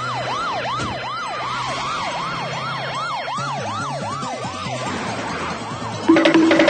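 Cartoon siren sound effect wailing up and down about twice a second, fading out after about five seconds, over a low bass line. Near the end, music with a wood-block beat comes in loudly.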